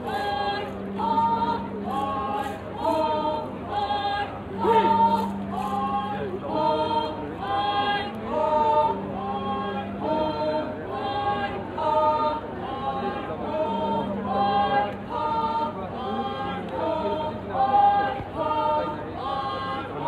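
A group of voices singing a folk song together in a steady chant-like rhythm of short sung phrases, about one a second, with a low held note underneath in stretches.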